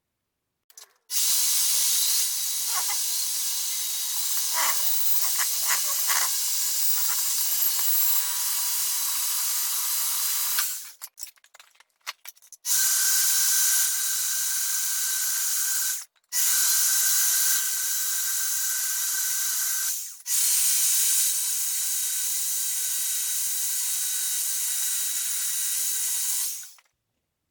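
Arc welding: a steady hiss with crackling in the first run, in four long runs of several seconds each separated by short breaks, as a universal-joint yoke is welded onto a steel plate.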